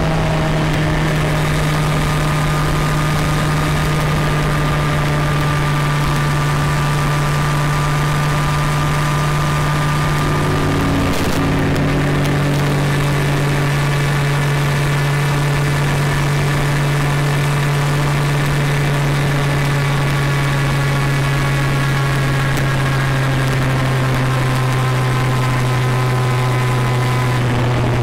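Engine of a vehicle driving along a road, running steadily with road and wind noise; its hum steps down to a lower pitch once, about eleven seconds in, and sinks slightly lower near the end.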